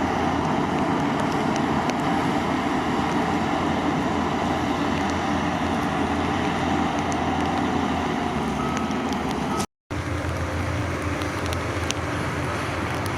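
Heavy construction machinery's diesel engine running steadily under load. About ten seconds in the sound drops out completely for a moment, then carries on a little quieter with scattered light clicks.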